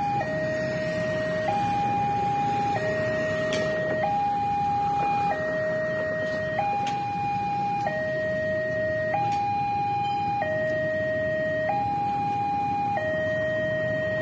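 Railway level-crossing warning alarm from a pole-mounted loudspeaker: an electronic two-tone sounding steadily, switching between a low and a high note about every 1.2 seconds, to warn that a train is approaching. Motorcycle traffic runs underneath.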